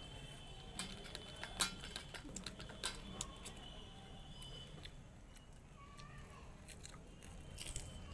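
Scattered light clicks and clinks of stainless steel plates and crisp golgappa puri shells being cracked open by hand and eaten, the sharpest click about a second and a half in and a small cluster near the end.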